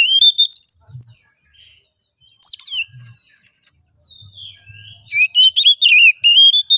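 Oriental magpie-robin singing loud, rapid runs of whistled notes that climb in pitch, with a pause and then a sharp falling note about two and a half seconds in. This is the bird's excited, aggressive song, the kind that is used to provoke rival males into answering.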